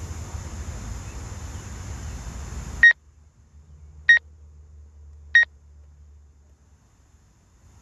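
Three short electronic beeps on one high pitch, about a second and a quarter apart, loud over a faint low hum. Before them, a steady rushing noise cuts off suddenly.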